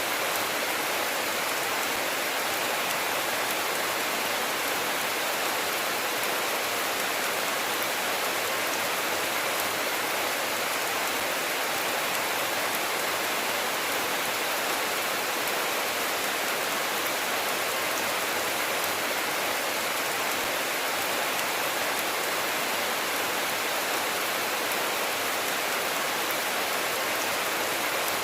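Steady rainfall, an even hiss of many drops that holds constant throughout, with no thunder.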